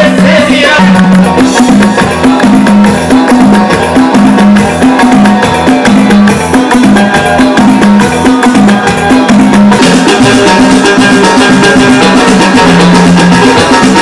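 A live band plays loud, upbeat Moroccan popular music on electric guitar, keyboard and drums over a bouncing, repeating bass line. The sound grows brighter and fuller about ten seconds in.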